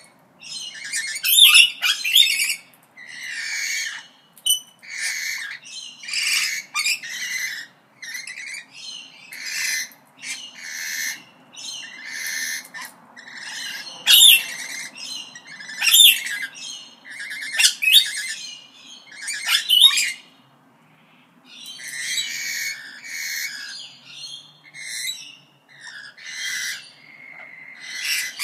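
Parrots calling in a steady run of short, shrill calls, about one or two a second, with a break of about a second about two-thirds of the way through.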